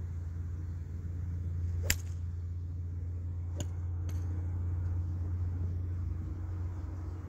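Golf club striking a teed golf ball: one sharp crack about two seconds in, followed by two fainter clicks a couple of seconds later, over a steady low hum.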